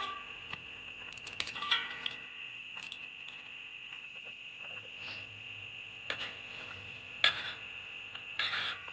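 Kitchen utensils clinking and knocking against cookware: a series of short, sharp knocks, a few of them ringing, the loudest near the end. A steady high-pitched whine runs underneath.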